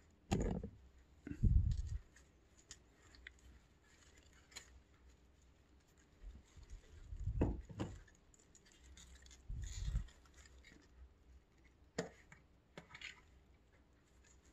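Hands packing silk moss around a potted orchid and handling its pot: soft rustling broken by several dull thumps, two close together near the middle, and a sharp click later on.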